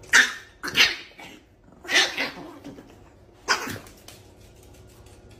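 Four short, harsh bursts of sound from a pet, each well under half a second, spread over the first three and a half seconds.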